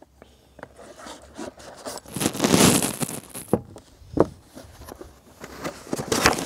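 Cardboard shipping box being opened by hand: the tape along its seam is torn with a long rasp about two seconds in, among scrapes of cardboard and a few sharp knocks.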